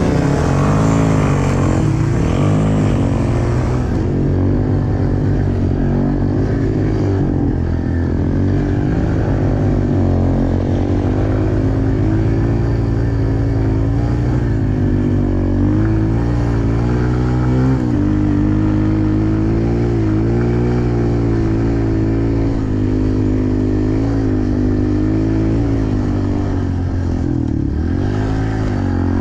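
Pit bike engine running hard under load, revving up sharply at the start and then rising and falling in pitch again and again as the throttle opens and closes.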